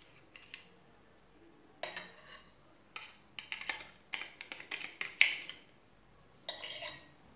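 Knife blade scraping grated garlic off a small metal hand grater into a saucer, in short irregular scrapes with light metallic clinks.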